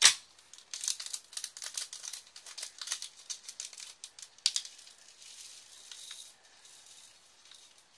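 A sharp click, then a small plastic bag of diamond-painting drills crinkling and the little resin drills rattling as they are poured into a plastic drill tray, the clicking dying down into soft crinkling after about four and a half seconds.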